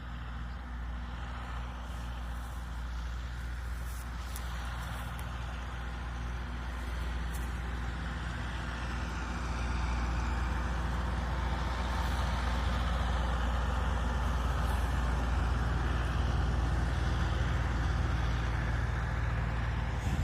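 A large vehicle's engine running with a steady low rumble that grows louder about halfway through.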